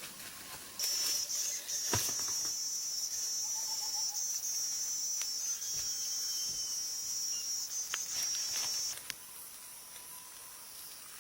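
Steady, high-pitched insect drone that starts about a second in and stops shortly before the end, with a sharp click about two seconds in.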